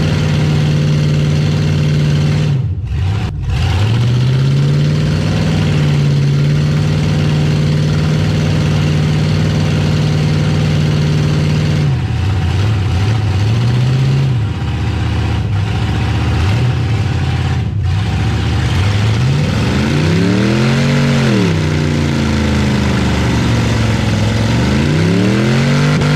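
Pickup truck engine held at high revs under load while pushing nose to nose against another truck. The revs drop briefly about three seconds in and again midway, then swing down and back up twice near the end.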